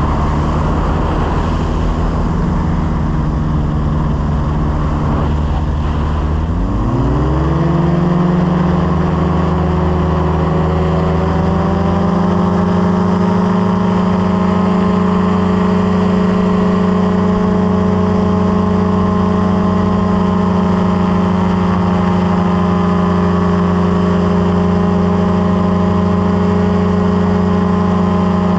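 Light aircraft's piston engine and propeller running steadily, then throttled up about six seconds in, rising quickly in pitch to a higher steady drone that holds.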